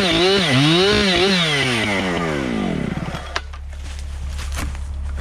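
Husqvarna 592XPG two-stroke chainsaw revving up and down twice at high revs. About a second and a half in its pitch slides steadily down as the throttle is released, leaving a low steady rumble. A few light clicks and knocks follow.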